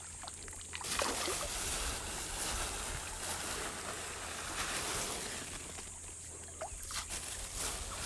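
Light splashing and sloshing of fish-pond water as fish stir at the surface.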